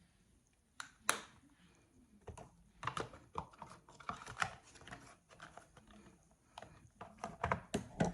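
Makeup compacts and brushes being handled: a run of irregular light clicks and taps.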